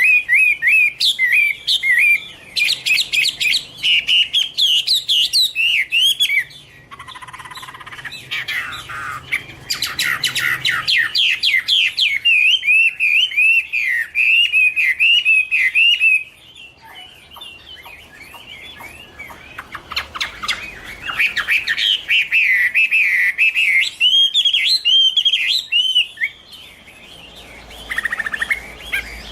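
Chinese hwamei (Garrulax canorus) singing: loud, varied phrases of rapid, slurred whistled notes, with short quieter breaks about seven and seventeen seconds in.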